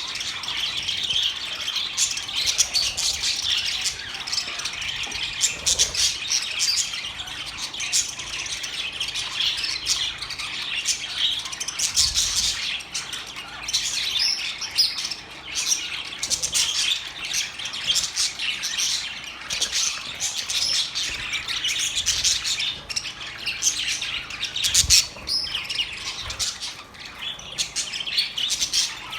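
A flock of budgerigars chirping, chattering and squawking without pause, many short, high calls overlapping.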